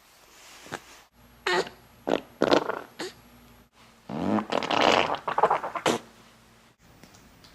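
A baby farting: four short farts in quick succession, then a longer, sputtering one lasting about two seconds.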